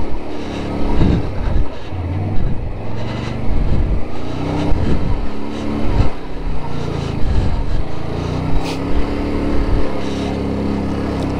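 ATV engine running under changing throttle as it is ridden, its pitch rising and falling several times. A few short knocks come through along the way.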